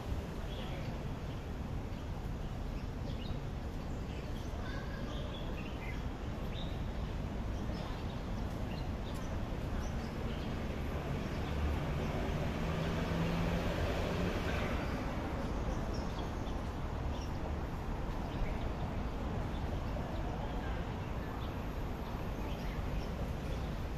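Outdoor city ambience: a steady background hum, typical of distant traffic, with scattered small bird chirps. The background swells for a few seconds near the middle.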